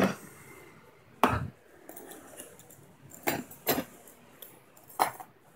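Hard plastic tool carrying case handled on a tabletop: five short, sharp knocks and clacks as it is turned around and its latches are worked open, two of them close together about three and a half seconds in.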